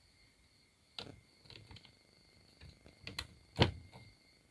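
Several clicks and knocks of a plastic chainsaw-adaptor cover and chain against the metal bar as the cover is handled and fitted, the loudest knock about three and a half seconds in.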